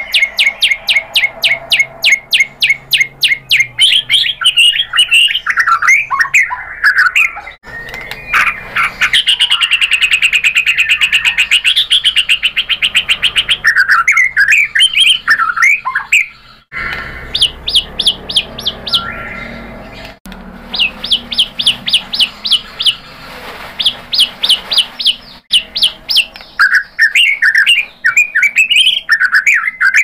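White-rumped shama (murai batu) singing a loud, varied song. Fast rattling runs of rapidly repeated notes alternate with whistled and chattering phrases, and a long fast trill comes about a third of the way in.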